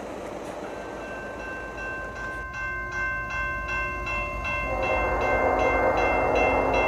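Railway crossing bell ringing steadily, about three strokes a second. From about five seconds in, an approaching train's horn sounds and the train's rumble grows louder.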